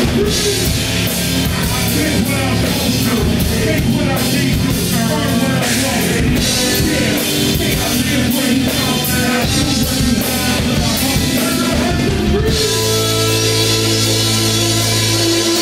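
Live rock band playing loudly with distorted electric guitar and drum kit; about twelve and a half seconds in the drums drop out, leaving a held chord ringing.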